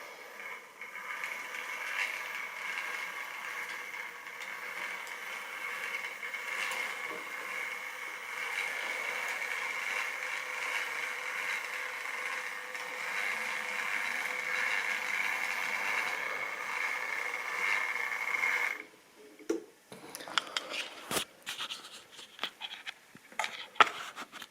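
Model railway train running on the track, its small electric locomotive motor whining steadily with the wheels rolling over the rails, then stopping suddenly about three-quarters of the way through. After that comes a series of sharp clicks and knocks.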